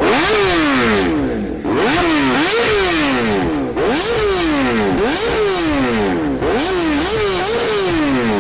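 Kawasaki ZX-10RR inline-four superbike with an Austin Racing full exhaust system, revved hard again and again, each rev climbing fast and falling back. Loud.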